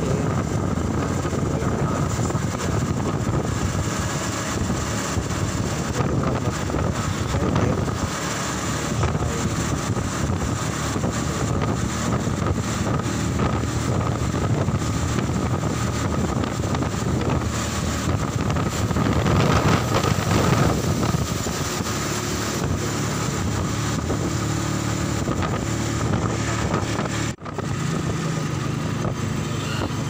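Motorcycle tricycle engine running steadily while riding along a road, with wind buffeting the microphone. The sound cuts out for an instant near the end.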